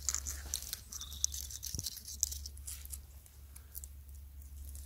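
Dry crackling and rustling of hazelnut husks and leaves handled as ripe nuts are pulled from their husks, many small irregular clicks and crunches. A low steady rumble lies underneath.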